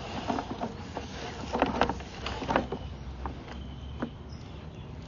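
Irregular knocks and clatter over a low steady hum as a sewer inspection camera's push cable is pulled back.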